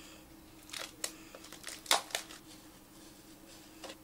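Utility knife slitting the seal of a cardboard phone box, with the box being handled: a handful of short scrapes and clicks, the sharpest about two seconds in, over a faint steady hum.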